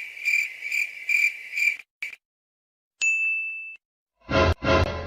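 A run of stock sound effects. First crickets chirping in an even rhythm about twice a second, cut off about two seconds in. After a short silence comes a single bright bell ding, then two short loud pitched blasts of another effect near the end.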